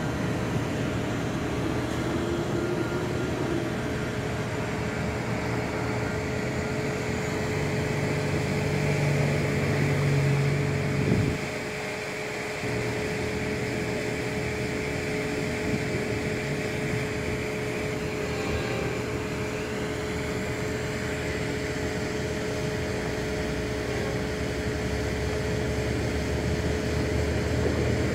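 Steady hum inside a stopped car: the engine idling and the air-conditioning fan running, with a steady tone and a low rumble that swells and then dips briefly about eleven seconds in.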